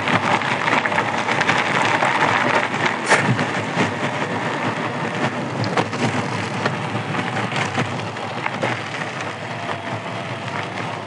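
Electric mountain bike's wide tyres rolling over a gravel and dirt road, a continuous crunching and crackling with frequent small rattles and knocks from the bike. A sharper knock comes about three seconds in.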